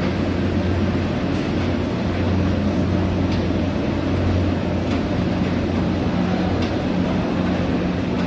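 Rubber-plastic foam insulation production line machinery running steadily: a constant electric-motor hum over an even mechanical din, with a few faint ticks.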